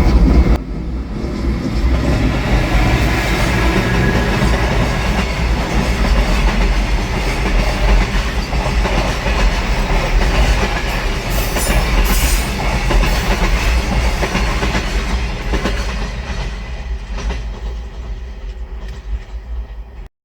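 A JR Freight train rolling past at close range, its wagon wheels clattering rhythmically over the rail joints. The sound steps down sharply about half a second in, then runs on steadily and fades over the last few seconds as the end of the train goes by.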